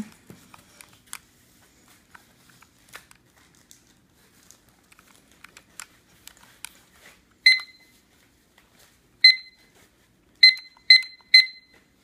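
Mudder digital kitchen timer giving five short, high single-pitch beeps, irregularly spaced over the last four and a half seconds, as its buttons are pressed. Before that come faint scattered clicks of the timer being handled.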